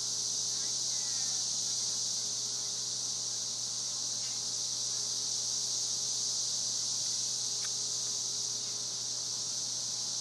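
A chorus of cicadas: a loud, steady, high-pitched drone that holds evenly without a break.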